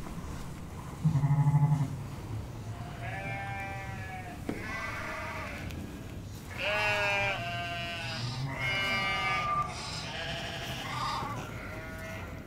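Sheep bleating: a run of about six wavering bleats through the second half. It follows a short, loud, low pulsing sound about a second in, the loudest thing heard.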